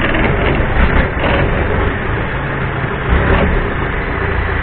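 Long-tail boat engine running steadily with a low rumble as the boat travels along a canal.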